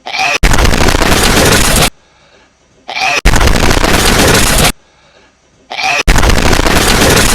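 A hedgehog's sneeze looped again and again, boosted until it distorts. Three times over, a brief squeaky snuffle leads into a loud, clipped blast of noise about a second and a half long, with short quiet gaps between.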